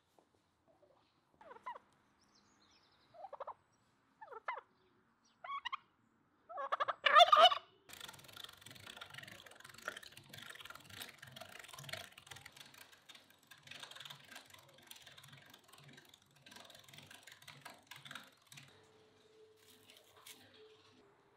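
Domestic turkey gobbling: several short calls over the first seven seconds, the last and loudest about seven seconds in. Then a hand-cranked metal meat grinder is turned, mincing meat with a rhythmic churning.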